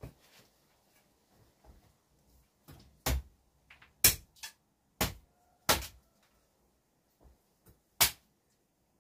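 Sharp knocks of a tool striking wood by hand. There are a few faint knocks, then five loud blows roughly a second apart, the last after a short pause.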